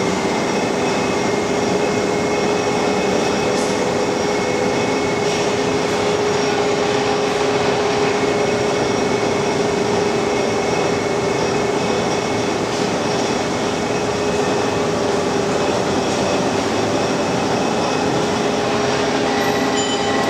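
Steady industrial machinery drone, with a constant mid-pitched hum and a fainter high whine over a noisy wash.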